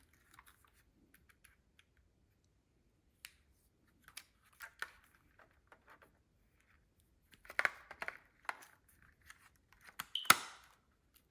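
Faint plastic clicks and rustling of a smoke detector being handled while a 9-volt battery is fitted onto its terminals. The sharpest click comes about ten seconds in.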